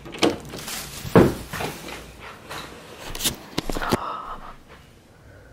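A door opened by its knob, with several sharp knocks and clicks of the latch and handling, the loudest about a second in, and footsteps.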